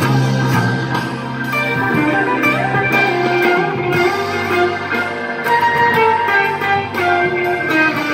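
Single-cut electric guitar played solo: picked melody lines over held low notes, the low notes ringing for the first couple of seconds.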